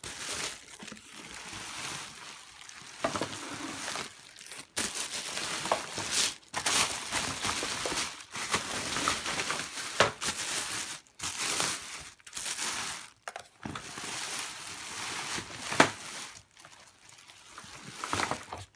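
Plastic packaging crinkling and rustling as it is handled and pulled off a new vacuum cleaner. It comes in stretches broken by short pauses, with a sharp click a few seconds before the end.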